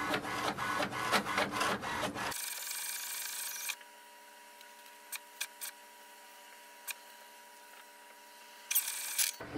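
HP Envy 6032 inkjet printer starting a print job: for about two seconds its paper feed and print carriage make a dense scratchy run of quick mechanical clicks. It then drops to a faint hum with a few soft clicks, and a short burst of noise comes near the end.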